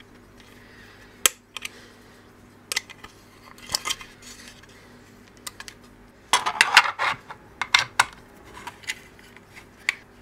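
A metal hex key and screws clicking and clinking against a 3D-printed plastic bracket as it is handled and screwed onto the CNC carriage, with a denser clattering rattle a little past six seconds in. A faint steady hum runs underneath.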